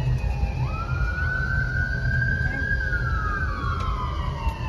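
Emergency boat's wailing siren: the tone sweeps up about half a second in, holds high, then glides slowly back down through the second half. A steady low rumble runs underneath.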